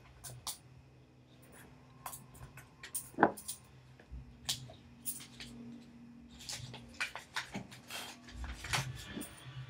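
Scattered small clicks and taps of makeup cases and brushes being handled, with one sharper knock about three seconds in, over a low steady hum.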